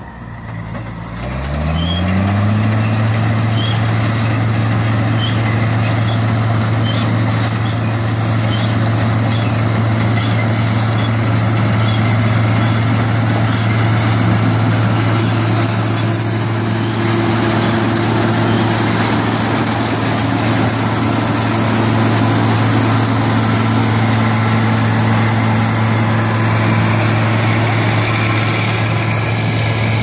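John Deere 630 combine harvester's Perkins diesel engine speeding up over the first couple of seconds, then running steadily at working speed while the combine harvests wheat.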